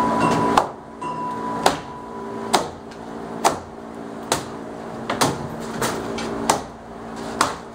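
Hammer blows on wooden framing overhead during interior demolition, nine sharp strikes about a second apart. A steady low hum runs underneath.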